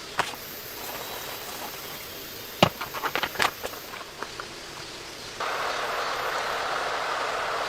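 Steady hiss of rain with a few sharp clicks and knocks in the middle. About two-thirds of the way through, a louder, denser hiss cuts in suddenly and holds steady.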